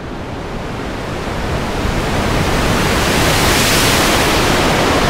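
Synthesized noise from a SoundHack Spectraphon Eurorack module: a steady rushing hiss that swells louder and brighter over the first few seconds, then holds.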